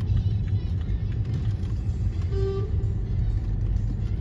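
Steady low road and engine rumble inside a car's cabin in city traffic, with one short car-horn toot about halfway through.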